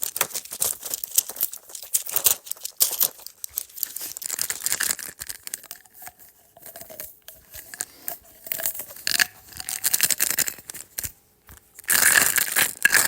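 Rapid clicks, crackles and crinkling of something being handled, thinning out in the middle and growing loud and dense near the end.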